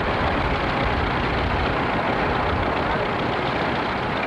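Vintage tractor engines running steadily.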